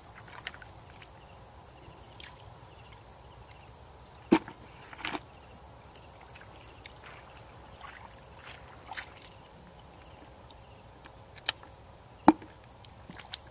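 Hands splashing and squelching in a shallow muddy puddle while fishing by hand, with a few sharp knocks as the catch is dropped into a plastic bucket: a loud one about four seconds in, another a second later, and two near the end.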